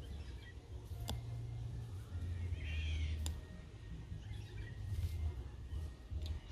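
Low, gusty wind rumble on the microphone, with a single cawing bird call about two and a half seconds in and a couple of light clicks.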